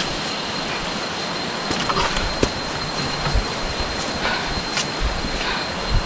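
Heavy, steady breathing of a hiker climbing a trail under a load, with a few short clicks of steps or a walking stick, over a faint steady high-pitched tone.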